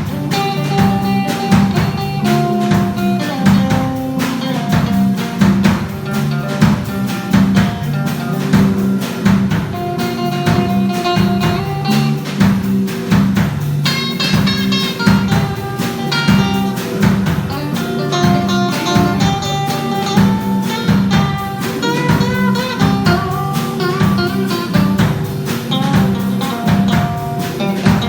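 Guitar playing melodic lead lines over a drum kit beat: a blues-style song played by a band.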